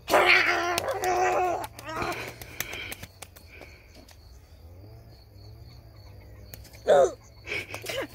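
Boys' voices making wordless, strained vocal noises: a loud drawn-out one at the start, a shorter one about two seconds in, and a short falling cry near the end.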